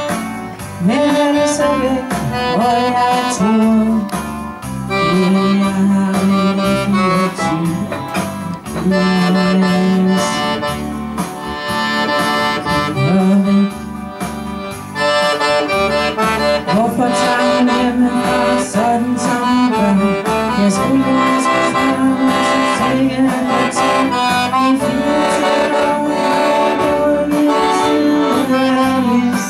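Live accordion music: a chromatic button accordion plays a song tune while a woman sings through a microphone.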